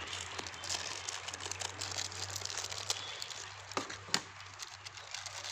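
Plastic snack packet crinkling as it is handled and opened, with two sharp clicks close together about four seconds in.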